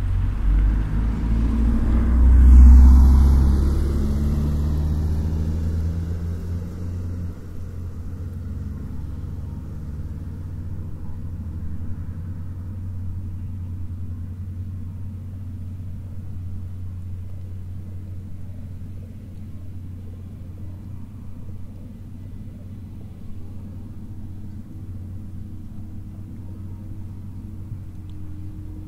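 A motor vehicle passes close by, swelling to its loudest about two and a half seconds in and then fading away over several seconds. A steady low rumble continues after it.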